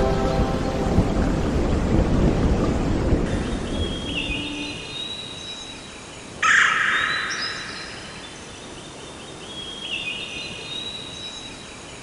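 Birds calling: a series of thin calls, then one loud, harsh call lasting about a second about six and a half seconds in, and more calls near the end. A low rumbling noise fades out over the first four seconds.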